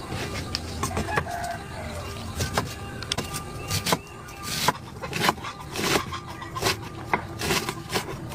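Eating fried snails: irregular sharp clicks of snail shells and short sucking slurps, coming faster in the second half.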